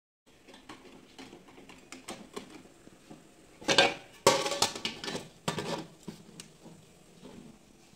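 Aluminium idli steamer pot, stand and lid clattering as they are handled. There are soft clinks and scrapes at first, then a run of loud metal clanks in the middle, the loudest about four seconds in.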